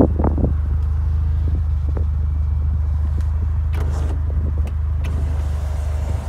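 Steady low drone of a 1993 Mazda RX-7 running, heard from inside its cabin, with a few light clicks about four to five seconds in.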